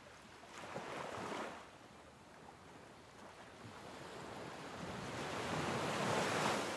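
Rushing noise like wind or surf: a short swell about half a second in, then a slow build that peaks near the end and eases off.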